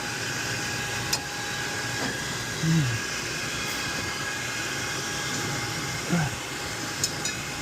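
Steady machinery hiss with a faint hum, broken by two short voice sounds and a couple of sharp clicks.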